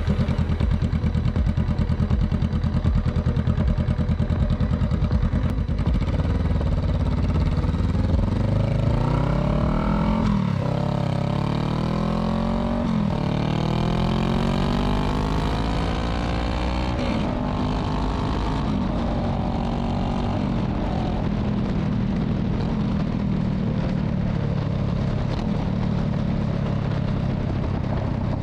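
Honda Rebel 500's parallel-twin engine through a Shortie GP slip-on exhaust, little more than a muffler delete. It runs at low revs, then pulls away and accelerates through the gears, the pitch climbing and dropping back at each of about three upshifts, then settles to a steady cruise.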